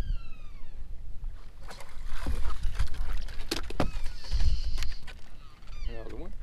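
Water slapping around a bass boat, with clicks and knocks of rod and reel handling as a bass is hooked and swung aboard. A bird gives a falling call at the start, and a short falling voice-like exclamation comes near the end.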